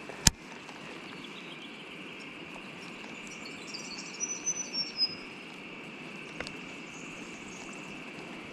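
Steady high-pitched insect chorus, with a sharp click just after the start and a few quick bird chirps about four to five seconds in.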